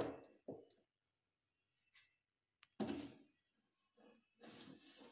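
Handling noises at a kitchen cabinet with a rolling shutter: a sharp knock at the start with a second one half a second later, another knock about three seconds in, then a rustling scrape near the end.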